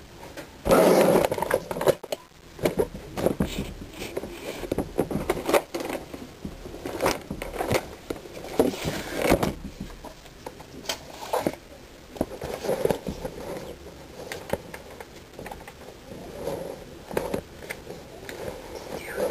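Irregular clattering, rattling and knocking of small hard objects being handled, loudest in a burst about a second in.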